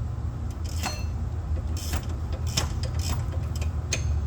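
Sparse metallic clicks and clinks from hand tools working a suspension bolt, about one a second, over a steady low hum.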